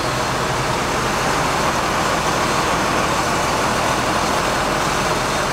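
Steady rushing air noise over a low hum from the parked RV's air conditioning running.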